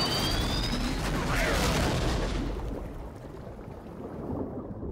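A crashed cargo jet's engine still running in the sea, a high whine rising in pitch over a loud rushing rumble. The noise eases to a lower rumble about halfway through.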